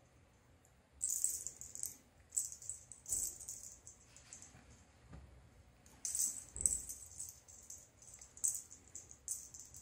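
Metallic jingling in irregular bursts of shaking, the longest about six seconds in.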